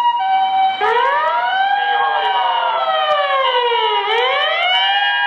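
Toyota original siren on a High Medic ambulance. It opens with the alternating two-tone hi-lo ambulance call. About a second in, a slow wailing tone joins it, rising, falling back over about two seconds, then rising again near the end, while the two-tone carries on alongside.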